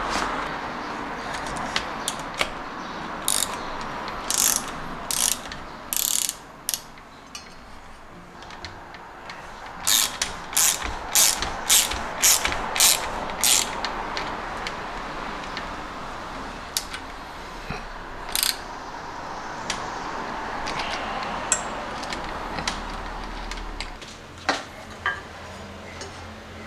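Sharp clicks of a ratcheting hex tool tightening the crank arm bolt on a carbon bicycle crankset. A few scattered clicks come first, then a quick run of about eight, roughly two a second, near the middle, then more scattered clicks later.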